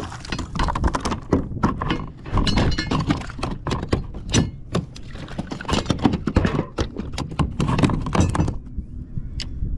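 A run of irregular knocks, thumps and clinks as a just-landed trout and fishing gear are handled on a kayak, dying away about a second before the end except for one last sharp click.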